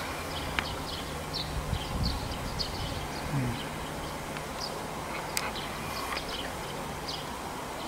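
A swarm of Japanese honeybees giving a low, steady hum as it crawls into a bait hive through the entrance, with small birds chirping repeatedly in the background.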